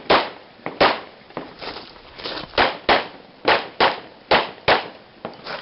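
A string of semi-automatic pistol shots: about eight sharp cracks, the later ones fired in quick pairs roughly a third of a second apart, with fainter, more distant cracks between them.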